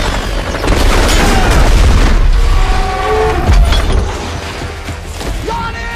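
Movie battle sound effects: loud explosion booms and bursts of gunfire, with a heavy deep thud about three and a half seconds in. Held tones come in from about halfway through.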